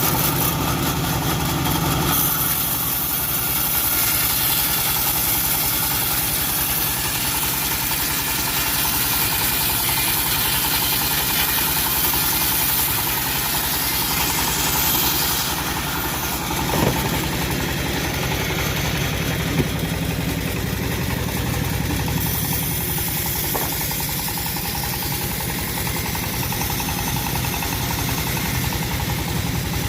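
Engine of a homemade bandsaw mill running steadily, with a couple of short knocks around the middle.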